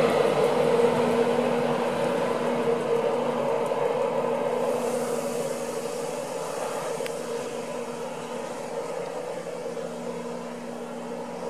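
InterCity 225 train hauled by a Class 91 electric locomotive running past, a steady whining hum that fades away gradually.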